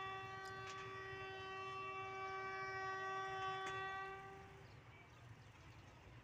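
Diesel locomotive horn sounding one long, steady blast of several tones together, heard at a distance, cutting off about four and a half seconds in. A low rumble runs underneath.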